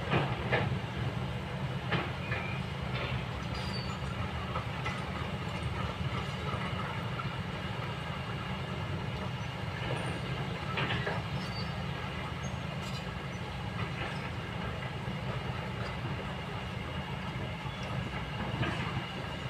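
Kobelco long-reach excavator's diesel engine running steadily as the machine travels on its crawler tracks, with scattered clanks and knocks over the low drone.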